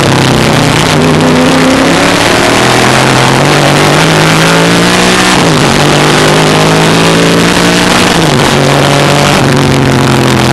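1963 Ford Falcon Sprint race car's V8 engine under full throttle, heard from on board. The pitch climbs steadily and drops sharply twice, about five and a half and eight seconds in, as the car upshifts through the gears while accelerating out of a corner onto a straight.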